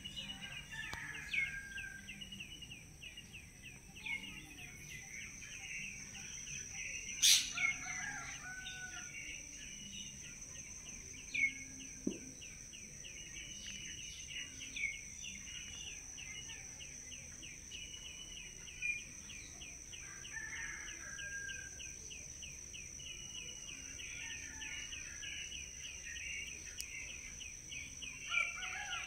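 Birds chirping in the background, with a fast, evenly repeated chirp running throughout and a steady high whine. A single sharp click about seven seconds in.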